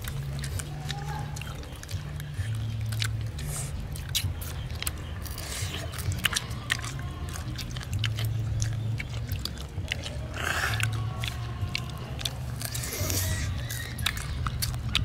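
Close chewing and biting into crispy roast chicken wings, with many sharp crunches and crackles scattered throughout. A low-pitched background music bass line runs underneath.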